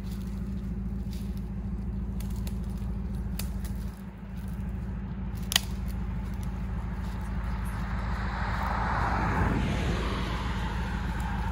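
Footsteps through dry brush and grass, with twigs crackling and snapping and one sharp snap about five seconds in; the rustling grows louder in the last few seconds as the steps come closer. A steady low rumble runs underneath.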